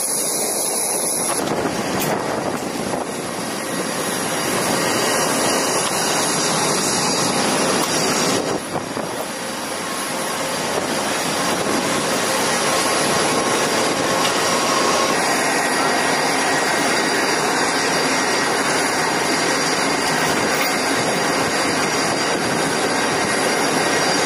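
Steady jet engine noise on a carrier flight deck, a dense even rush with a faint high turbine whine. The sound changes abruptly about 1.5 s in and dips briefly about 8.5 s in, then runs on steadily.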